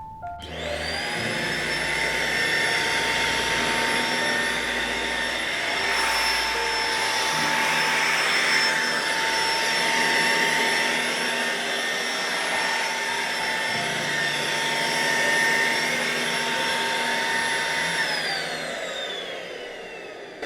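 Deerma CM919 handheld dust mite vacuum cleaner switched on, its motor spinning up within a second to a steady high whine. Near the end it is switched off and the whine falls in pitch as the motor winds down.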